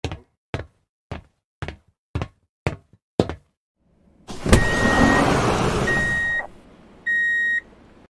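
Sci-fi door sound effects: seven sharp mechanical clicks at about two a second, then a sharp hit and a loud hissing rush lasting about two seconds with an electronic beep tone over it. One short, clean electronic beep follows near the end.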